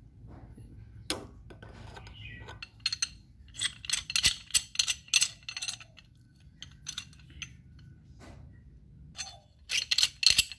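Steel hand tools clinking and clicking against each other as they are handled. The clinks come in quick clusters, busiest a few seconds in and again near the end.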